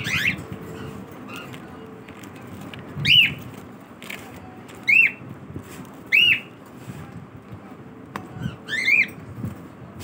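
Cockatiels giving short, sharp contact calls, each one quick to rise and fall in pitch, about five of them spread a second or more apart, over the low rustle of the flock on the aviary floor.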